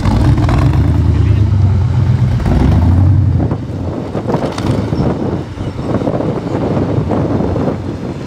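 Engine of a tube-frame extreme-trial buggy working under load as it crawls up a steep sandy gully. A steady low drone for the first three and a half seconds gives way to a rougher, uneven sound.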